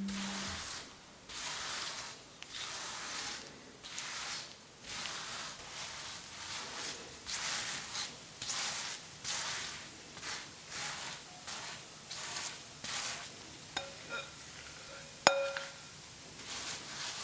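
Repeated rubbing or scraping strokes, about one and a half a second, then near the end two light clinks, the second ringing briefly.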